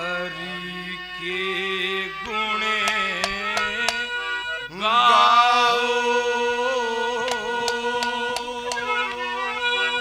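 A male voice singing a long wordless opening alaap over a steady harmonium drone. The voice slides through the notes, then about five seconds in rises into a long held note with a slight waver. Sharp percussion taps fall here and there.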